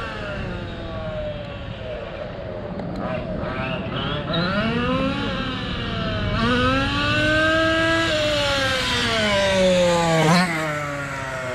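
MCD XR5 1/5-scale RC car's gas two-stroke engine revving up and down as the car is driven, its pitch rising and falling several times. It climbs highest about eight seconds in, then falls steeply with a brief sharp burst just after ten seconds.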